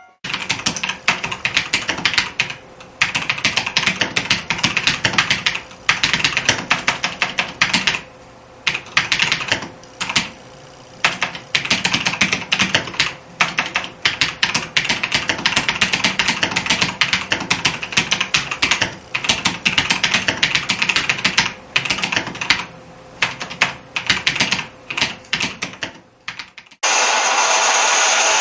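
Fast typing on a Lenovo Y Gaming mechanical keyboard with Kailh Red linear switches: runs of rapid keystroke clicks broken by short pauses. About a second and a half before the end, the typing stops and a steady hiss-like noise takes over.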